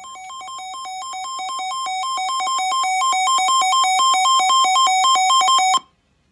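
Weather alert radio's alarm: rapid electronic beeps alternating between two pitches, growing steadily louder, then cutting off suddenly near the end. It signals that a new weather warning is being received.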